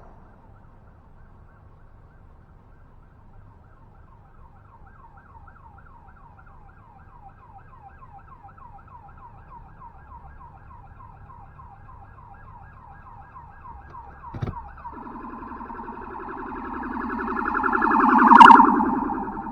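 Emergency vehicle siren in a yelp, a rising-and-falling wail about four times a second. After a sharp click about 15 s in it switches to a faster warble that grows much louder to a peak near the end, then starts to fade as the vehicle passes.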